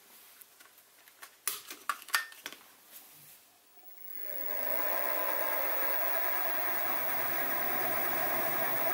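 A few sharp clicks and knocks from the rotary table's locks being tightened by hand. About four seconds in, the Sieg SX2P mini mill's spindle motor starts and runs steadily, turning a centre drill in its drill chuck.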